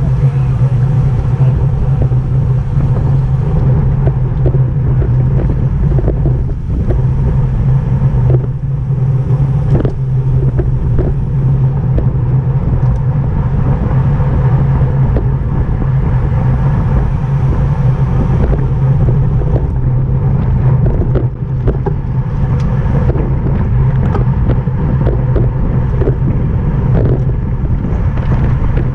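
Steady wind and road rush of a bicycle at racing speed, with a constant low hum.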